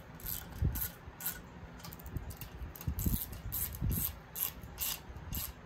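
Hand ratchet clicking in short, irregular runs as the cylinder head nuts of a VW 1600cc air-cooled engine are snugged down lightly, with a few dull knocks of metal on the engine.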